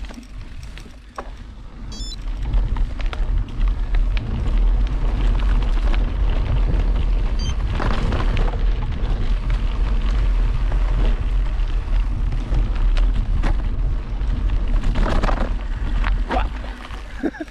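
Wind buffeting the microphone in a steady low rumble that builds up about two to three seconds in, with scattered knocks and rattles over it, as from moving fast over rough ground.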